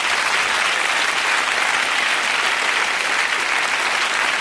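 Studio audience applauding: dense, steady clapping from a large crowd.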